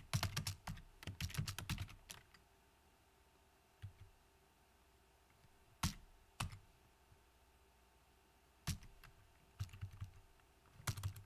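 Typing on a computer keyboard: a quick run of keystrokes in the first two seconds, a few single key clicks spread through the middle, then another quick run near the end.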